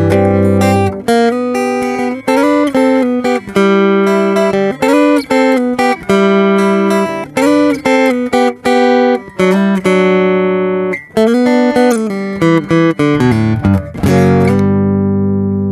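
Stratocaster-shaped flat-top acoustic guitar with a marupá body and maple neck, played solo through its LR Baggs M1 passive pickup straight into a recorder with no effects or compression. It plays a quick melodic line of plucked notes with slides between pitches, ending on a chord left to ring for the last second or so.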